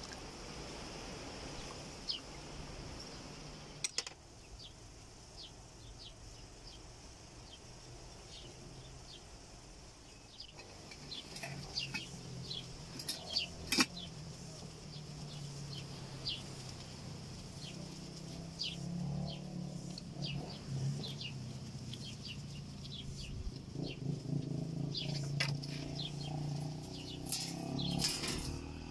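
Small birds chirping, short high calls over and over. From about eleven seconds in, a low hum joins them, with a couple of sharp clicks along the way.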